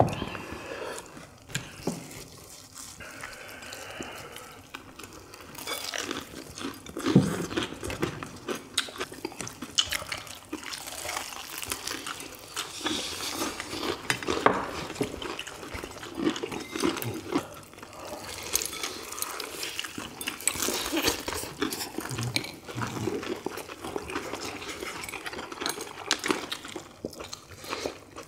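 Fried chicken drumsticks being eaten by several people: irregular crunching bites and chewing, with dishes and glasses clinking and the splash of drinks.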